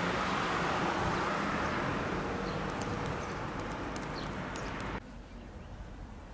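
Outdoor street ambience: a steady rushing noise like a vehicle passing out of sight, fading slowly, with a few faint high bird chirps. It drops suddenly to quieter outdoor ambience about five seconds in.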